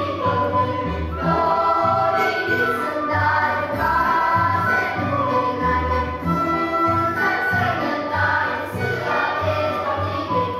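Children's choir singing a winter holiday song, accompanied by a folk ensemble of violins, double bass and accordion, with a steady pulse of bass notes underneath.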